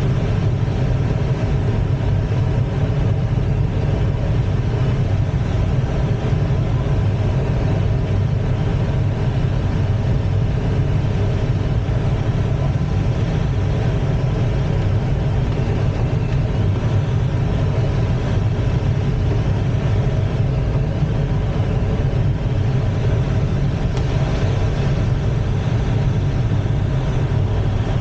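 Steady airflow noise in the cockpit of an ASK-21 two-seat glider in flight: a constant low rumble with faint steady hums above it.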